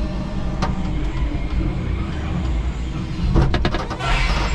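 A 5-ton electric forklift driving with a loaded pallet on its forks: a steady low hum and rumble from the truck, with sharp clicks and rattles from the mast and load a little after three seconds, and a rushing hiss near the end.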